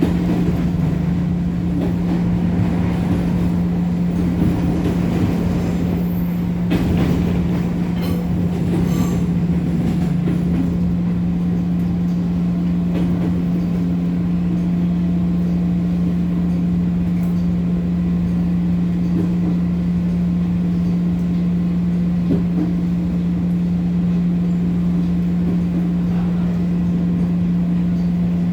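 Interior running sound of a JR 205 series electric multiple unit's motor car. A steady hum rides over wheel and rail noise, with a few sharp knocks about six to nine seconds in.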